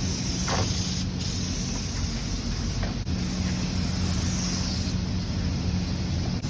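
Steady high hissing spray that shifts in strength a few times, over a low steady hum.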